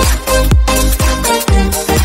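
Background music: an upbeat electronic dance track with a steady kick drum about twice a second under synth chords.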